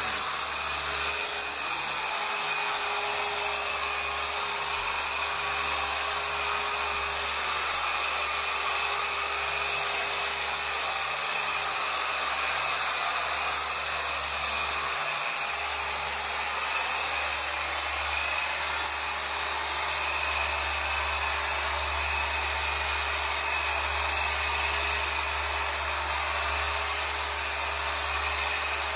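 Chicago Electric dual-action orbital polisher running steadily, its scrub pad working a wet, pre-sprayed mattress fabric.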